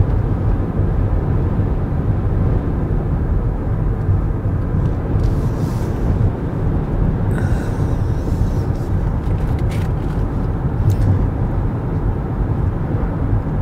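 Steady road and tyre rumble with wind noise inside the cabin of a Kia EV6 electric car at highway speed. There is no engine note, only the hum of the tyres on the pavement.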